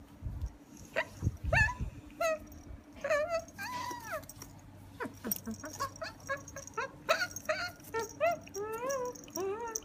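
Beagle puppy whining and yipping over and over while it plays at biting a comb: short high cries, many sliding up or down in pitch. There are a few dull bumps in the first couple of seconds.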